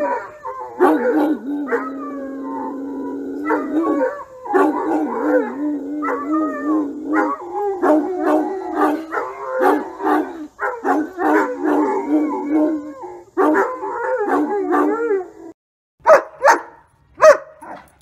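Irish wolfhound howling in long, wavering notes, broken by short pauses. Near the end the howling stops and a dog barks sharply three times.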